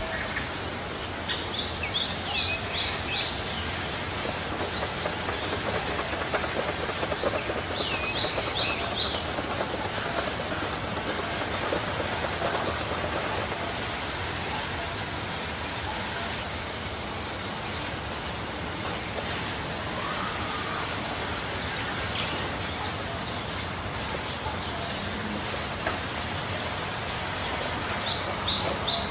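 Large sawmill band saw running steadily as its blade cuts lengthwise through a big log. Birds chirp in short bursts a couple of seconds in, around eight seconds, and near the end.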